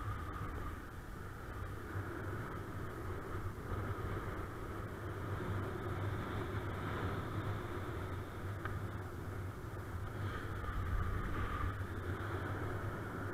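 Steady wind noise from airflow rushing over a paraglider pilot's camera microphone in flight in strong wind, with a faint steady high tone over the low rumble.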